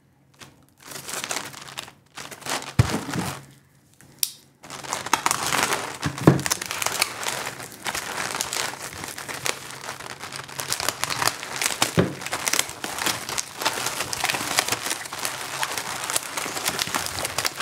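Plastic packaging and anti-static bags crinkling and crackling as a parcel of parts is unwrapped and handled: scattered crinkles at first, then continuous crackling from about four and a half seconds in, with a few light thumps.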